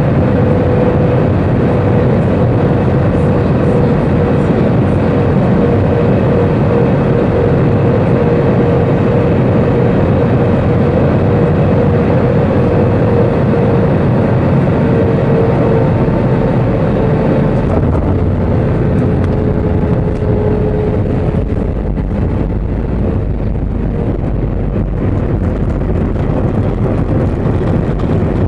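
Jet airliner on final approach heard from inside the cabin: steady engine and airflow noise with a whine that slowly drops in pitch and fades out about twenty seconds in.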